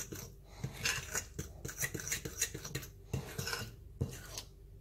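A utensil stirring pancake batter in a bowl, clinking and scraping against the bowl in irregular strokes as the flour is worked in to get rid of lumps.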